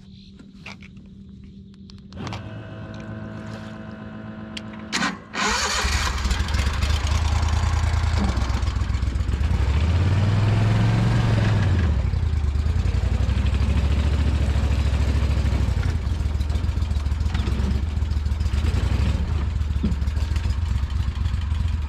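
Prodrive surface-drive mud motor starting up about two seconds in and running at a low steady pitch. From about five seconds in it runs loud under heavy throttle, with a rise and fall in revs around ten seconds in, as it shoves the boat forward through dense reeds and brush.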